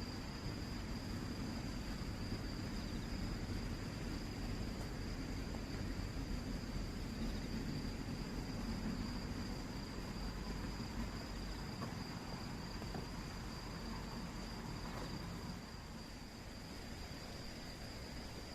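Crickets chirring at night in one steady, unbroken high-pitched trill, over a low rumble of background noise.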